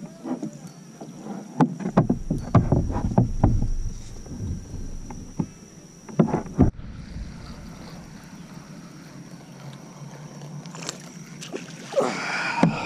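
Knocks, clicks and handling noise from fishing gear on a plastic fishing kayak as a rod is cast and the reel is worked, with a brief low wind rumble on the microphone early on. Near the end comes a splash at the water's surface.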